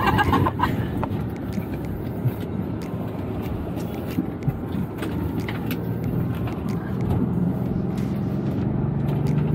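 Ford Bronco driving on a dirt course: steady engine and tyre rumble with scattered small ticks. From about seven seconds in, the engine note climbs as the vehicle accelerates.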